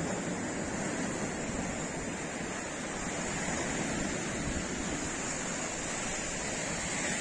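Sea surf washing on a sandy beach, a steady rush of breaking waves.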